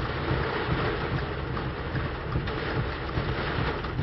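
Steady rushing storm noise heard from inside a car, wind and rain against the car, with faint irregular ticks through it.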